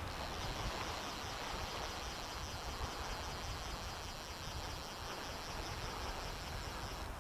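Steady hiss of wind and small waves on the sea.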